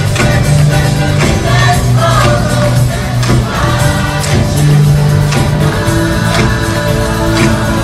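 Large youth gospel choir singing in unison with a live band of electric guitar, bass guitar and keyboard, over a steady beat.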